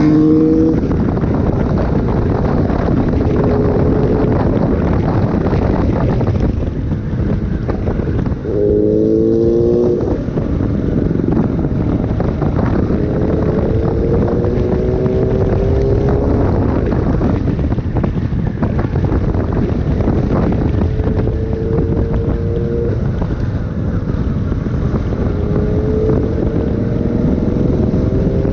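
Motorcycle riding at speed, with heavy wind buffeting the microphone. The engine note climbs in pitch several times as the bike accelerates.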